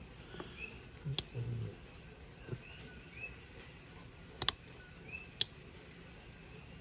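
A few sharp metallic clicks from a lock pick working a padlock's pins under tension: one about a second in, a quick double a little past four seconds, and another soon after. Coqui frogs chirp faintly and repeatedly in the background.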